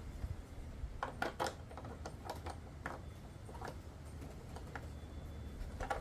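Scattered light clicks and taps of hard plastic parts as the bumper piece of a new tail light assembly is handled and pushed into place, a few close together about a second in, then spread out.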